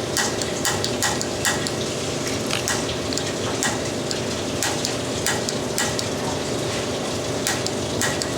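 Water running steadily through the plumbing, with irregular crackling pops throughout.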